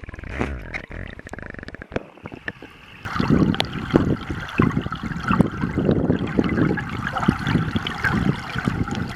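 River water running and splashing, fairly quiet at first and then louder and busier from about three seconds in.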